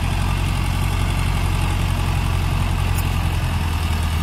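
Heavy diesel engine of the recovery machinery running steadily near idle, a deep, even drone that holds the same pitch throughout.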